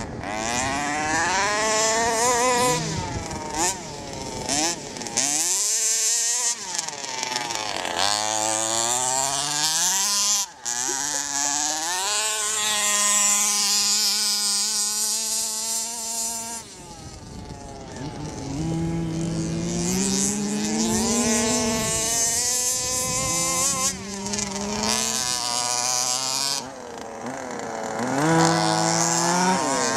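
Small two-stroke petrol engines of 1/5-scale HPI Baja RC cars (26cc) revving hard and easing off again and again, their pitch climbing as they accelerate and falling as they back off.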